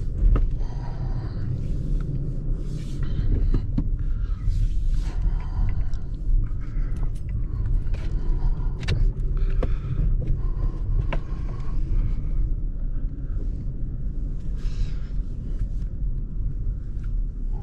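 Inside the cabin of a four-wheel-drive vehicle crawling over a rough, steep dirt road: a steady low rumble from the drivetrain and tyres, with irregular knocks and rattles from the body and suspension working over the uneven ground.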